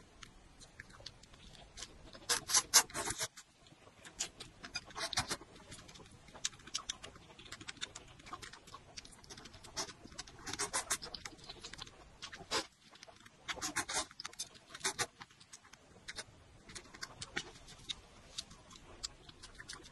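Close-up eating sounds of instant noodles in broth: the noodles are slurped and chewed in several short, wet, crackly bursts with pauses between them. The loudest slurp comes about two and a half seconds in.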